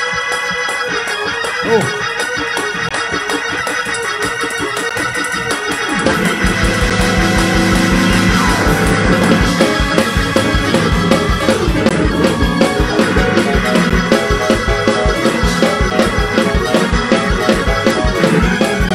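Church organ holding sustained chords. About six seconds in it gets louder and breaks into a fast praise-break shout groove, with a quick steady beat underneath.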